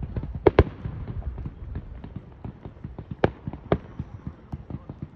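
Fireworks going off: a pair of loud bangs about half a second in and two more a little past three seconds, with a dense run of smaller pops and crackles between them.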